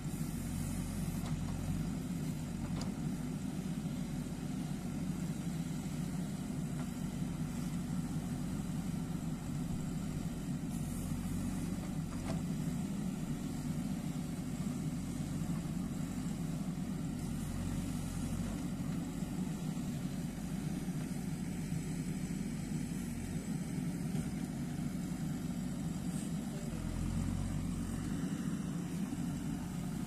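Diesel engine of a JCB 3DX backhoe loader running steadily while its backhoe arm digs soil, its low drone swelling now and then.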